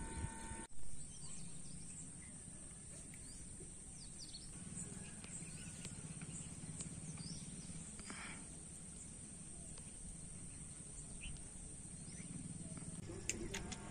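Quiet outdoor ambience with faint, scattered bird chirps. A brief thump sounds about a second in.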